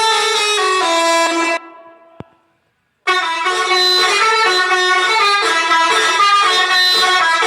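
Telolet horn, a multi-tone musical air horn of the kind fitted to Indonesian buses, playing a melody of stepped notes. It breaks off after about a second and a half, a click sounds, and after a brief silence the melody starts again.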